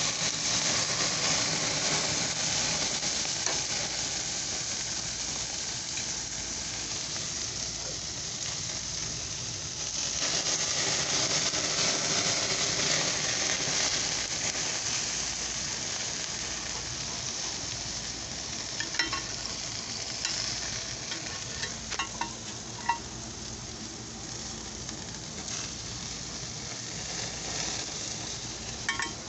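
Pork ribs sizzling on grill grates over open flame: a steady frying hiss that swells about ten seconds in, with a few short sharp ticks in the second half.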